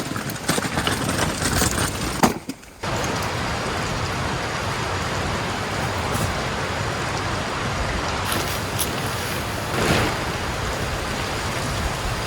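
River water rushing steadily, an even hiss-like noise, with a brief break about two seconds in.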